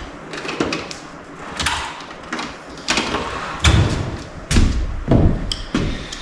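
Metal Powerglide transmission parts being handled and set down: a series of clunks and knocks, several of them heavy thuds, with a brief metallic ring near the end.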